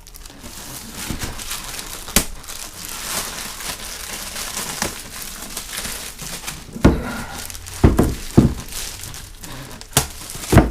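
Packaging wrapped around a wooden knife block crinkling and rustling as it is unwrapped and handled. Several sharp knocks come through it, the loudest in the second half.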